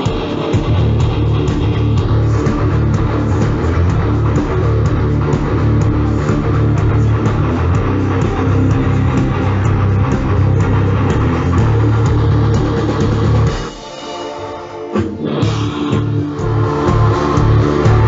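Heavy metal band playing live at full volume: electric guitars, bass guitar and drum kit, with a lead singer. About 14 s in, the band drops out for a second or so, leaving a held note, then comes crashing back in.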